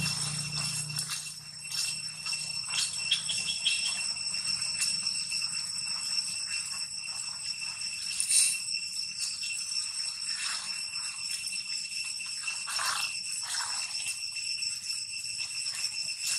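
Dry fallen leaves crackling and rustling as long-tailed macaques move and forage among them, over a steady, high-pitched ringing drone. A short, louder crackle comes about eight seconds in.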